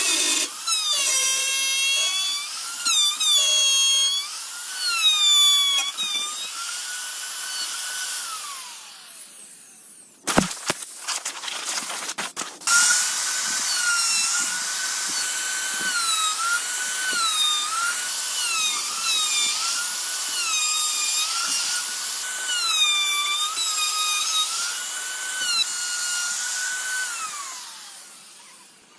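Electric drill motor whining, its pitch dipping again and again as it bites into the wood, then winding down. A few knocks follow before the drill starts again, runs with the same repeated dips under load, and winds down once more near the end.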